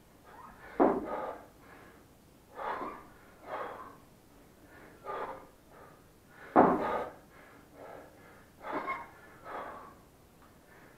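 A man breathing hard through kettlebell clean-and-jerk reps with a 28 kg bell: short, forceful breaths about once a second. The loudest come about a second in and again about two-thirds of the way through.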